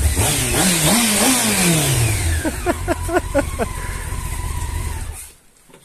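Motorcycle engine revving and then winding down, over a steady rushing noise. A voice is heard briefly about halfway, and the sound drops away about five seconds in.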